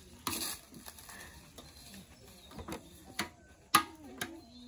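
A baby's hands slapping and patting a motorcycle's metal fuel tank: a run of irregular light knocks, the sharpest nearly four seconds in.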